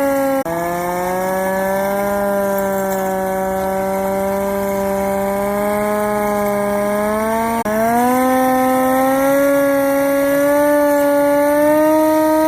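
Hand-cranked mechanical siren on a 1926 Studebaker fire truck, wailing loudly. Its pitch drops suddenly about half a second in and holds low, breaks off briefly near eight seconds in, then climbs back up and keeps rising slowly as the cranking speeds up.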